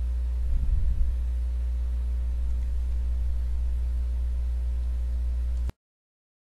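Steady low electrical hum with a ladder of evenly spaced overtones, mains hum on the recording, with a brief faint low rumble about a second in; it cuts off abruptly to silence near the end.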